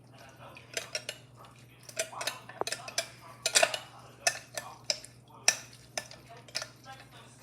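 A lemon being juiced with a hand lemon juicer: irregular clicks and knocks of the juicer against a dish, a dozen or so sharp strikes.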